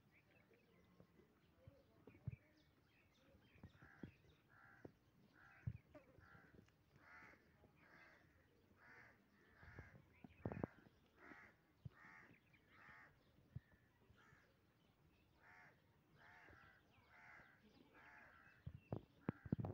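A bird calling over and over in short, harsh calls, about one to two a second, starting a few seconds in. A few sharp knocks sound among the calls, the loudest about halfway through and several near the end.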